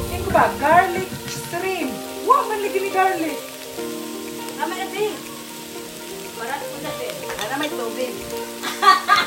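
Shell-on shrimp frying in a wok, sizzling, under background music with a singing voice and long held notes.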